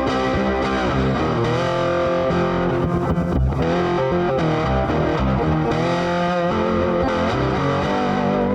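Intro music led by a distorted electric guitar, playing long held notes over a bass line.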